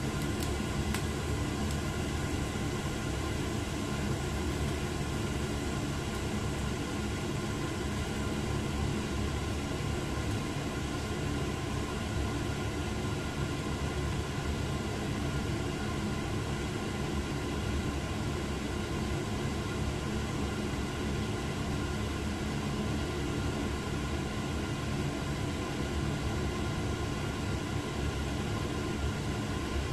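Steady, even hiss with a low hum that does not change, from a lidded frying pan of carrots, potatoes and meat cooking on an electric hob.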